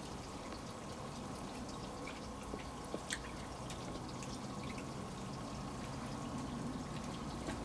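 Light rain with water dripping: a faint steady patter with a few scattered drips.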